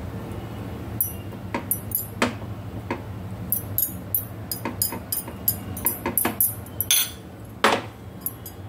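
A spoon clinking and scraping against a glass bowl and a ceramic plate as chicken filling is spooned onto toast and spread out: a run of quick taps, thickest in the middle, with two longer scrapes near the end.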